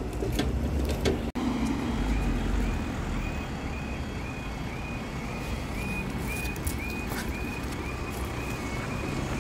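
Level crossing warning alarm starting up about two seconds in, a short high beep repeating about twice a second, sounding as the amber and then the flashing red road lights come on to warn that a train is approaching. Road traffic rumbles underneath.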